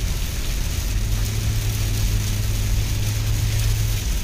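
Steady noise inside a moving car's cabin in the rain: a low engine and road hum under an even hiss from the wet road and the rain.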